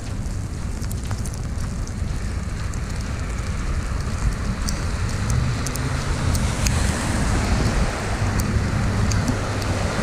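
Winter-storm wind rumbling on the microphone with icy precipitation ticking, and road traffic swelling louder through the second half.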